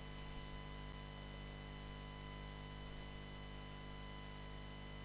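Steady electrical hum with many overtones over a faint hiss, the background noise of the recording, with nothing else happening.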